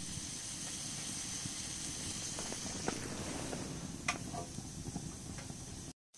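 Hamburger patties sizzling on the hot griddle top of a rocket stove: a steady hiss with a few faint ticks.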